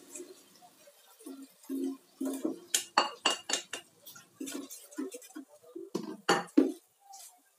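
A cooking utensil clinking and scraping against a plate and a metal cooking pot as shredded chicken is scraped into the pot and stirred. There is a quick run of sharp clinks about three seconds in and two loud knocks a little after six seconds.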